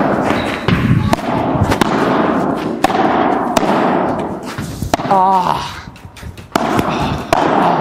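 Padel ball being struck with rackets, sharp separate pops about once a second over a steady noisy din with voices. About five seconds in, one voice gives a wavering shout.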